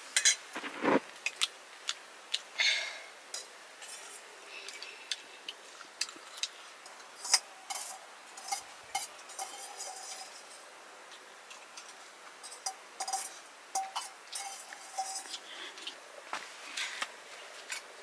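A steel spoon clinking and scraping against a steel bowl during eating, a scattered run of light, irregular clinks.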